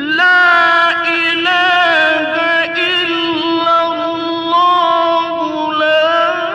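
A single male voice in melodic Quran recitation, holding one long drawn-out vowel that wavers gently in pitch and shifts slightly between steps.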